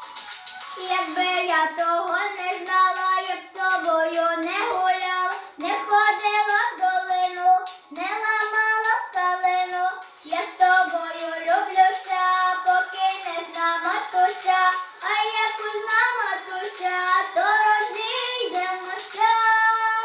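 A young girl singing solo, her voice coming in about a second in and carrying on through phrase after phrase of held, gliding notes.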